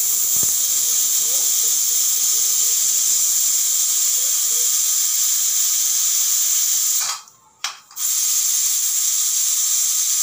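Steam hissing loudly and steadily out of a pressure cooker's vent as the pressure is let off after cooking. It cuts out for about a second near the end, with one short spurt in the gap, then hisses again.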